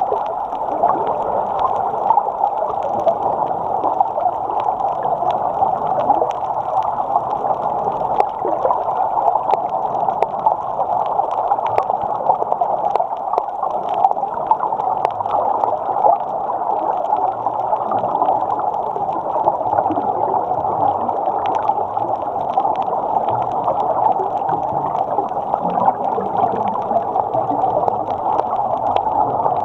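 Muffled, steady underwater rushing picked up through a waterproof camera housing mounted on a snorkel, carrying the snorkeler's breathing through the snorkel, with scattered faint clicks and crackles.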